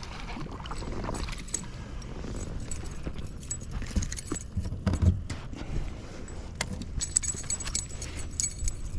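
Light metallic jingling and clicking of fishing tackle being handled as a small bass is unhooked, with a dull knock about five seconds in.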